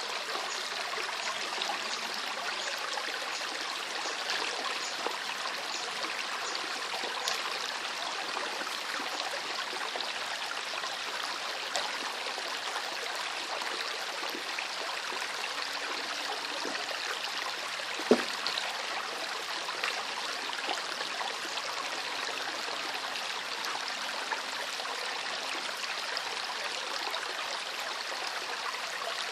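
River water flowing steadily, an even rushing with small trickles and splashes. One sharp click about two-thirds of the way through stands out as the loudest sound.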